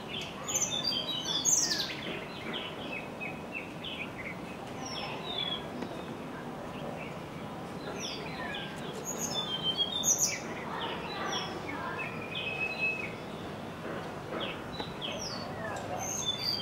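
Songbirds chirping and whistling: many short high notes and quick falling whistles, overlapping from more than one bird. The loudest calls come about a second and a half in and again near ten seconds.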